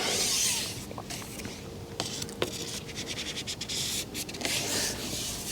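Rubbing and scraping of fishing gear being handled close to the microphone, with a few light clicks.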